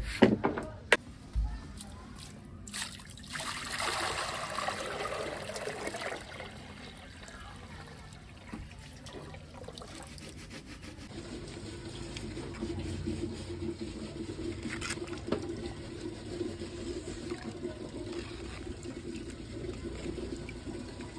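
Water being poured into a shallow tank, splashing and trickling, with a few knocks in the first second.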